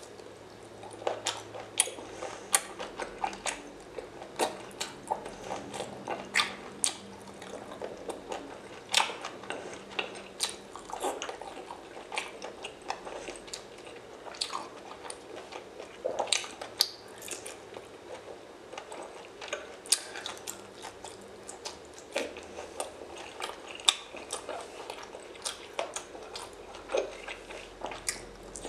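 Wet chewing and biting of seafood, with frequent irregular sharp clicks and mouth smacks.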